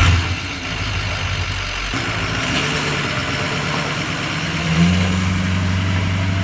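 An engine running steadily, its note strengthening about five seconds in.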